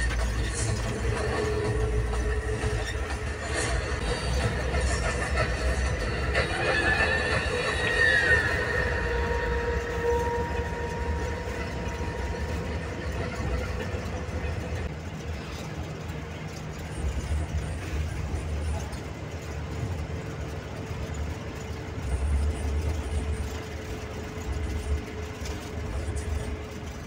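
Bus engine running and road rumble heard from inside the bus cabin while driving along a road. A brief high falling tone comes about seven to eight seconds in.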